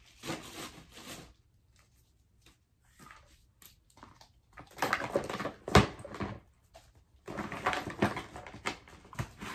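Rustling and clatter of belongings being handled and dropped into a clear plastic storage bin, in three bouts, with one sharp knock about six seconds in.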